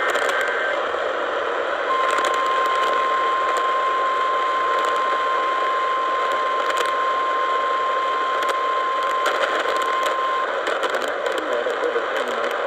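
The tail of an EAS digital header burst, then a radio emergency alert's single-pitch warning tone (the 1050 Hz alarm tone used by NOAA Weather Radio). The tone starts about two seconds in, holds steady for about eight seconds, then stops, over constant radio static and crackle. The tone signals that an emergency alert message is about to be read.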